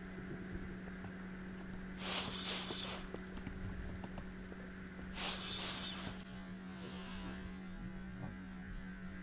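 A steady low hum, with two brief hissing swishes about two and five seconds in.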